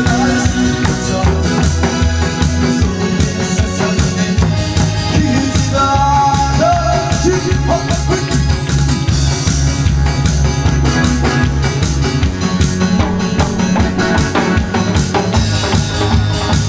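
Loud music with a steady drum beat and bass line.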